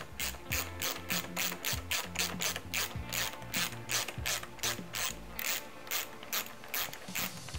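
Small hand ratchet with a hex bit clicking steadily, about four clicks a second, as it backs out the shock yoke bolts on a mountain bike's rear suspension.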